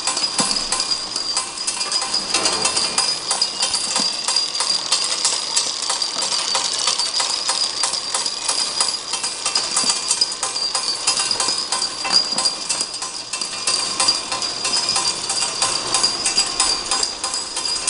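Automatic vial-labeling machine running: dense, rapid clicking and rattling of small vials rolling along the roller conveyor, over a steady high whine from the drive.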